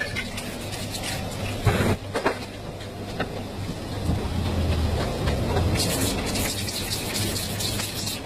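Aerosol spray paint cans hissing in short bursts, the longest about six seconds in, over a steady low hum and rumble. A few sharp knocks come about two seconds in.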